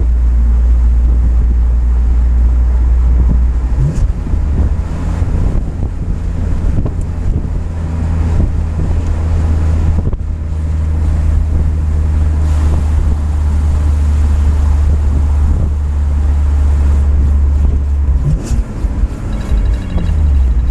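BMW M3 driving along, heard from inside the cabin: a steady low engine and road drone. The drone breaks and shifts pitch briefly about four seconds in, around the middle, and again near the end, as the engine note changes.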